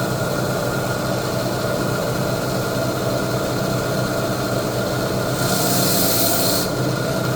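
Electric coral saw running steadily with a constant motor hum, cutting into a hammer coral skeleton; a hiss rises for about a second near the end as the blade works through the cut.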